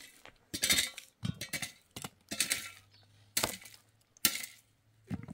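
Repeated scraping strokes in ash with clinks of metal tins, about one stroke a second, as an outdoor hearth is scraped out by hand.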